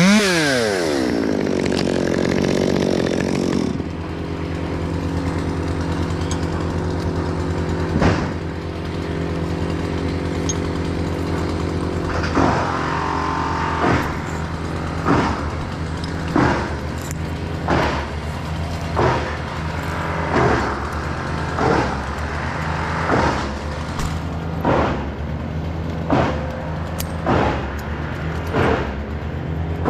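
Stihl MS 200T two-stroke top-handle chainsaw coming off the throttle, its revs falling away, then idling steadily. From about halfway on, sharp knocks sound over the idle a little faster than once a second.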